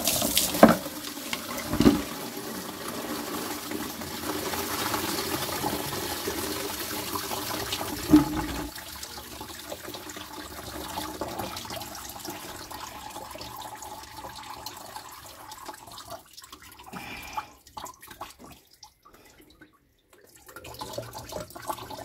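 Engine coolant gushing out of the bottom radiator hose of a Ford Mondeo ST220 the moment the hose pops off under pressure, pouring and splashing into a plastic bucket, with a few sharp knocks in the first seconds. The rush eases after about nine seconds and dies down to a trickle in the last few seconds.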